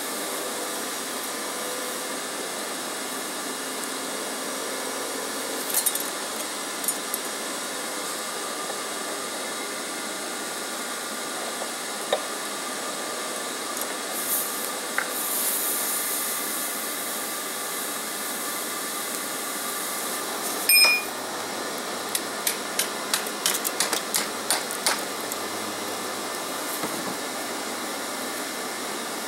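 A steady rushing hiss, like a forge or torch burner heating steel, with scattered metallic clinks of steel on steel and a quick run of about a dozen sharp clinks and taps about 22 seconds in.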